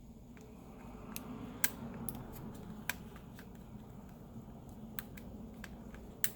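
Tweezers working a laptop's battery cable connector loose: scattered sharp clicks and light scraping over handling noise, the loudest click a little over a second and a half in.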